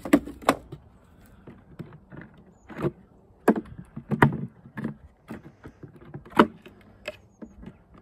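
Wooden beehive parts knocking and clattering as they are handled: a wooden crown board set down and a comb frame lifted out of a wooden hive box, in a string of sharp knocks.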